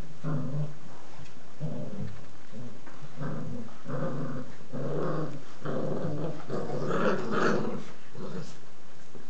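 Puppies play-fighting and growling: short growls one after another, loudest and highest around seven seconds in.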